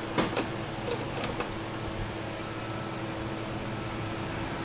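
Steady hum of workshop ventilation, with several light clicks and taps in the first second and a half from hands working on the scooter's handlebar.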